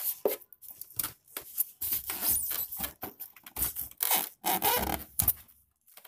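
Polystyrene foam packing insert being pulled out of a top-loading washing machine: irregular scraping and rubbing of foam against the machine's plastic, stopping shortly before the end.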